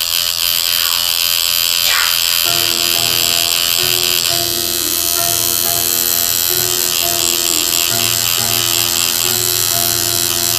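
Tattoo machine buzzing steadily while colour is worked into the skin of the face, with background music coming in a couple of seconds in.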